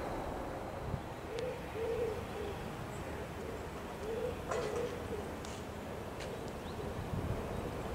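A dove or pigeon cooing in two short phrases of soft coos, the first about a second and a half in and the second about four seconds in, over a steady background hiss.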